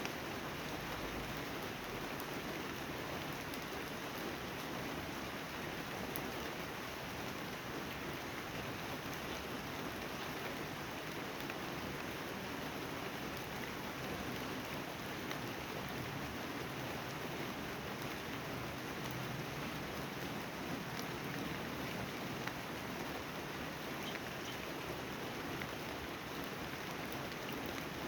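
Steady rain falling: an even hiss with scattered small ticks of drops hitting surfaces.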